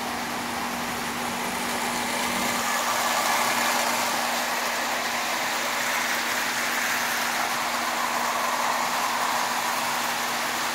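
Marx Commodore Vanderbilt tinplate toy train pulling a long string of tin litho cars around three-rail tinplate track: a steady whirring, rattling run of motor and wheels on the rails, growing a little louder twice as the train comes past.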